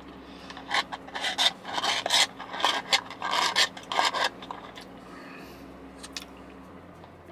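Plastic straw stirring a blended iced frappuccino in a plastic cup with a domed lid: a run of short rasping scrapes for about three and a half seconds, then a few faint clicks.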